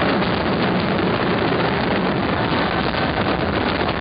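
Fireworks barrage: many aerial shells bursting at once, merging into a loud, unbroken roll of bangs and crackle.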